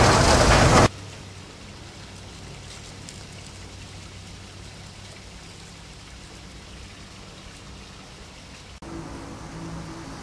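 Steam locomotive cab noise on the move, a loud steady rush that cuts off suddenly about a second in. It gives way to quiet outdoor background with a low hum, which shifts to a slightly louder low hum with a few steady tones near the end.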